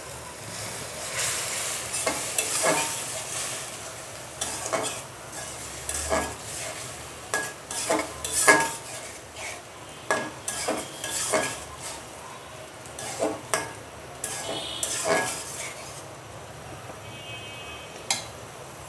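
Long metal spatula stirring and scraping frying onions and ginger-garlic paste around a metal karahi, with irregular scrapes and clanks of metal on the pan over a steady oil sizzle. The stirring stops a few seconds before the end, leaving only the sizzle and one last tap.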